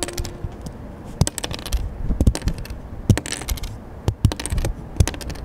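Die-cut cardboard tokens being pressed out of a board game punchboard: sharp pops and clicks about once a second, with short rustles of the card, very close to the microphone.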